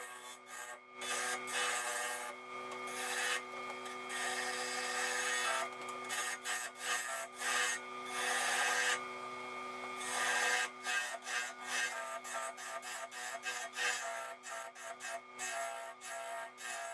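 Wood lathe running with a turning tool scraping and cutting the spinning alder blank, in bursts over a steady hum. There are a few longer passes at first, then many short, quick passes in the second half.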